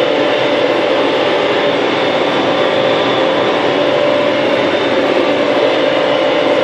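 New Holland TD100D tractor's diesel engine running steadily under way on the road, heard from inside the cab, with a constant whine over the drone.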